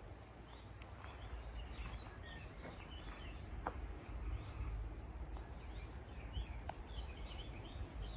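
Small birds chirping and twittering in many short, high calls, over a steady low rumble.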